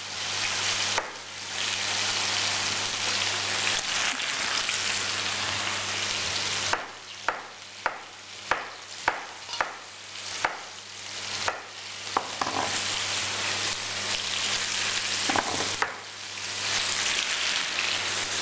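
Potato pieces and vegetables sizzling in oil in a frying pan, the sizzle jumping up about a second in as the potatoes go in. In the middle the hiss drops and a knife chops on a cutting board about twice a second, slicing spring onions, before the sizzle rises again.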